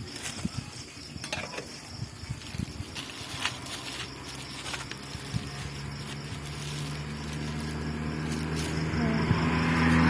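Scattered light clicks and taps, then a motor vehicle's engine hum that grows steadily louder over the second half, as of a vehicle drawing near.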